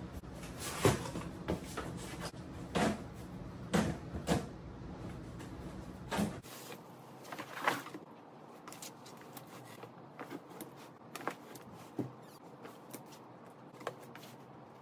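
Cardboard moving box being folded open and handled, with several sharp knocks and scrapes of the cardboard. About six seconds in, fainter clicks and rustling as clothes and clothes hangers are dropped into the box.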